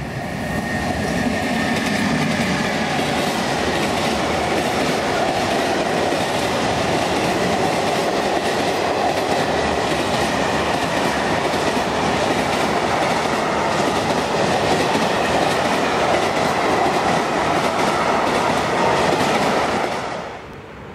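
A freight train of tank wagons hauled by an electric locomotive passes close by with a steady rumble and clatter of wheels on the rails. The sound drops away suddenly near the end.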